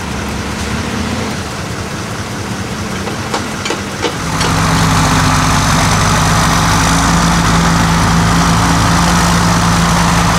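Heavy off-road truck engines running; about four seconds in, an engine revs up and holds at a steady, louder pitch as the truck is driven hard through the mud. A few short knocks come just before the rev.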